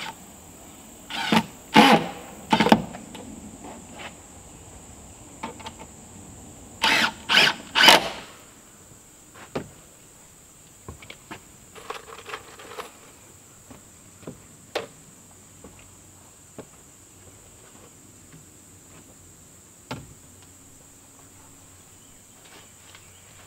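Cordless drill driving screws into wooden wall sheathing boards in short whirring bursts: three in the first three seconds and three more about seven seconds in. After that, scattered light knocks and clicks.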